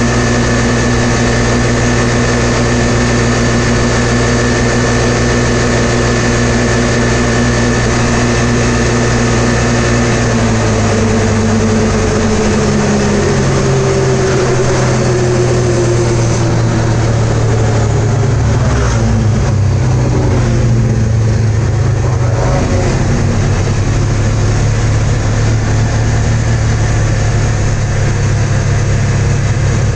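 Polaris RZR 570's single-cylinder engine, driving through a CVT fitted with a Dalton clutch kit, running at high revs (about 7,000 rpm) at a steady cruise near 50 mph. From about ten seconds in the engine note falls as the machine slows, settling to a lower steady note near 4,000 rpm at walking-to-jogging speed.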